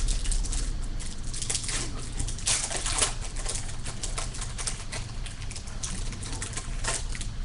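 Baseball trading cards being flipped and slid off a stack one after another: a run of quick, irregular papery swishes and flicks, over a steady low electrical hum.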